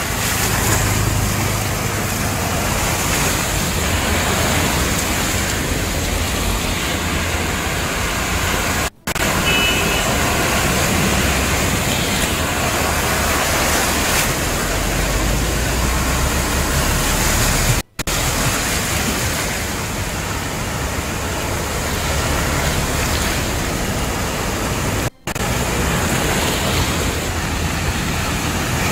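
Steady rushing noise of rain and vehicles driving through floodwater on a waterlogged road, broken by three brief silent gaps where the footage cuts.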